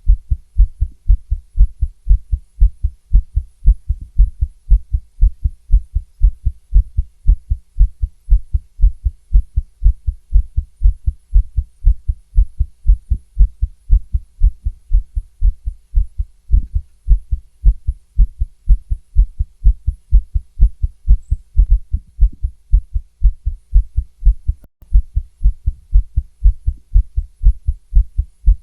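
A woman's heartbeat heard through a stethoscope: fast, steady lub-dub beats, deep and loud.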